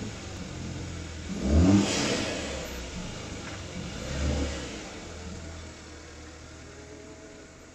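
2017 Hyundai i30 Turbo's 1.6-litre turbocharged four-cylinder petrol engine just after a cold start: revved sharply once about a second and a half in, blipped again more lightly a few seconds later, then settling to a steady idle that grows quieter as the microphone draws away from the front of the car.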